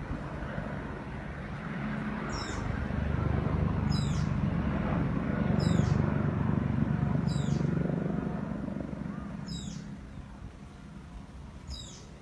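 Helicopter passing overhead: a low rotor and engine rumble that grows louder, then fades away over the last few seconds. A bird gives a short, falling chirp about every two seconds.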